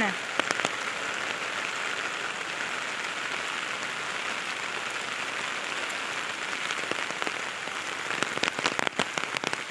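Heavy rain falling steadily, an even hiss. Near the end a run of sharp close ticks joins it.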